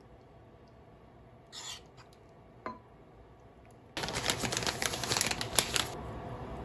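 Plastic bag of roasted sesame seeds crinkling and rustling as it is tipped and shaken over a bowl, starting about four seconds in and lasting about two seconds. Before that, only a soft swish and a light clink from a spoon serving tuna poke onto rice in a glass bowl.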